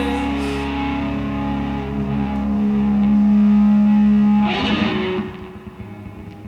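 Live rock band's distorted electric guitar and bass sustaining a final chord, held loud and then cutting off about five seconds in, leaving a faint ringing tail.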